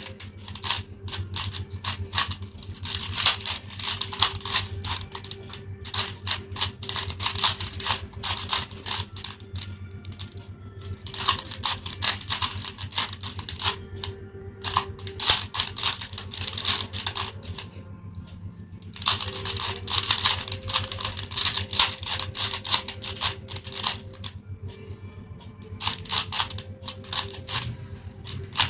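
A 3x3 Rubik's cube being turned rapidly by hand during a speed solve: a dense, irregular run of plastic clicks and rattles as the layers snap round, with a few short pauses.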